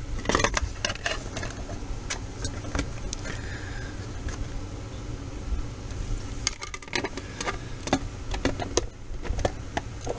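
Plastic project enclosure being handled, its lid lifted and set back down: scattered light clicks and knocks of the plastic case, over a steady low hum.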